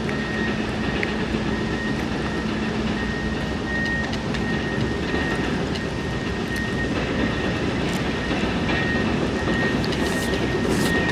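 A steady rushing, rumbling noise of outdoor air and light drizzle. Over it, a cat chews wet food close by, with a few sharp wet clicks near the end.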